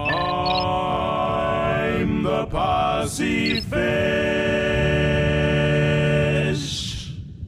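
Voices singing a cappella in long held chords, broken by short breaks about two and a half and three and a half seconds in. The last chord fades out near the end with a short breathy hiss.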